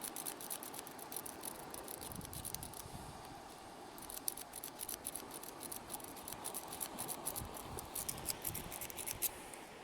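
Pick rake being worked back and forth in the pin tumblers of a padlock's Aussie oval cylinder, a fast run of light metallic clicks with a brief pause about three seconds in.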